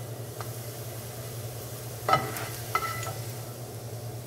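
Oil sizzling faintly in a skillet while a plastic slotted spatula scrapes and lifts sautéed onions and carrots, with a few sharp knocks of utensil on cookware, the loudest about two seconds in. A steady low hum runs underneath.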